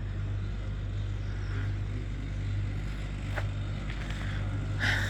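A steady low mechanical hum, unchanging throughout, with a faint click a little past halfway.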